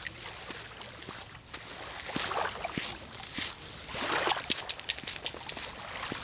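Footsteps crunching on frozen sand and gravel, a step about every half second, with a run of sharp clicks and crackles in the second half.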